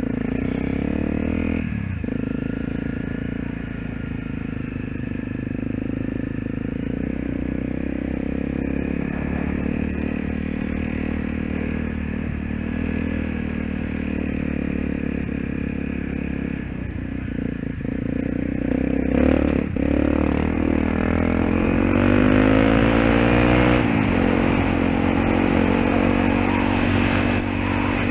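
Honda dirt bike's single-cylinder four-stroke engine running steadily while riding, heard from the rider's helmet. Near the end the engine revs up in a long rise, then drops sharply.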